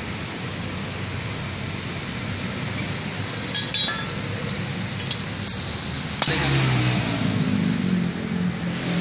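Small steel valve-train parts from a Yamaha R15 cylinder head clinking against each other and the metal head as they are handled, with a short cluster of clinks about halfway through. A louder low hum comes in about six seconds in, over steady background noise.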